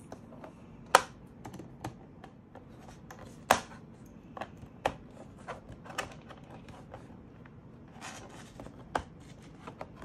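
Metal tool tip scratching and tapping on the plastic underside of a laptop while peeling off a sticker over a screw. Scattered sharp clicks come at uneven intervals, the loudest about a second in and again about three and a half seconds in, with a brief scratchy patch near the end.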